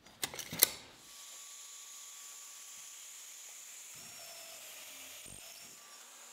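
Pencil marking lines on a cherry board: a few short scratchy strokes and a sharp tap in the first second. Then a faint, steady hiss.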